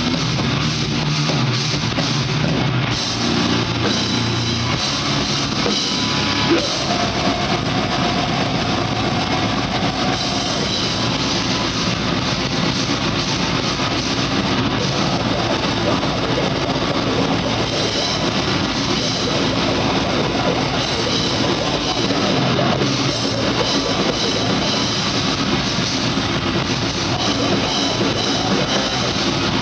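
Grindcore band playing live at full volume through the venue's PA: drum kit and distorted electric guitar in a dense, unbroken mix.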